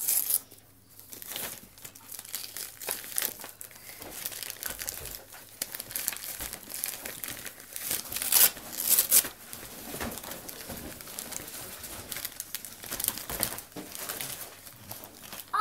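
Gift wrapping paper crinkling and tearing as a present is pulled open by hand, in irregular rustling bursts with the loudest tears a little past the middle.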